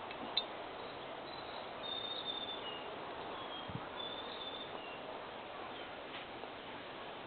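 Steady background noise with a few faint, short, high chirps through the middle and a single click near the start.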